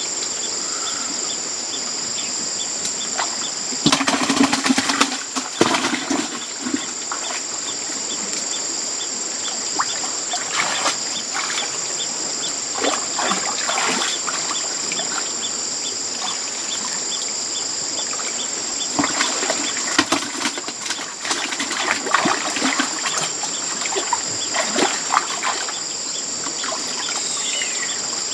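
Hands splashing and sloshing in shallow muddy water while groping for fish, in irregular bursts, loudest about four seconds in. A steady high-pitched insect drone runs underneath.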